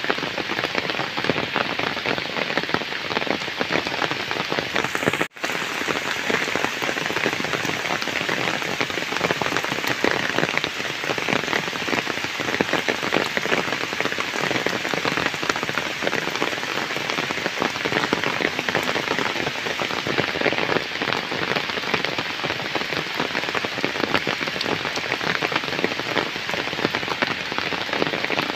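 Heavy rain falling steadily on flooded ground and puddles: a dense, even hiss of countless drops. The sound cuts out for a split second about five seconds in.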